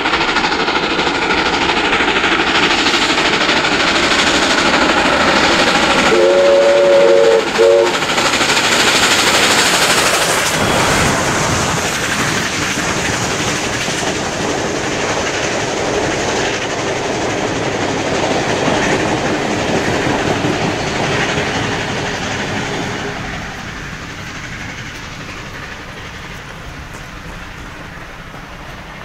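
Steam locomotive 5917, an NSW 59 class 2-8-2, passing with its train of passenger carriages, running loud and steady. Its steam whistle sounds a short chord about six seconds in. The carriage wheels then roll past on the rails, and the sound fades away over the last few seconds.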